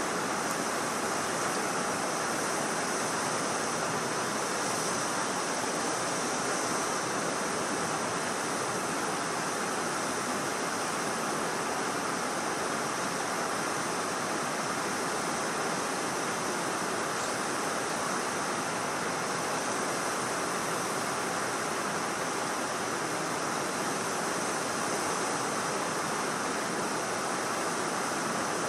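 Steady rush of water pouring over a dam, an even noise that does not change.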